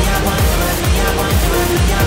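Electronic background music with a steady, fast kick-drum beat and sustained synth notes.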